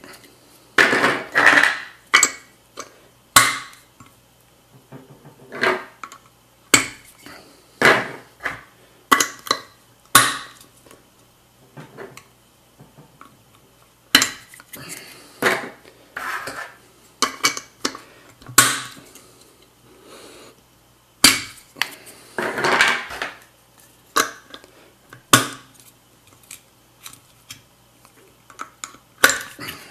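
A Mugen CF-48 center cap being pressed into and worked out of an alloy wheel's center bore by hand: irregular clicks, knocks and short scrapes of the cap against the wheel, some in quick clusters lasting about a second.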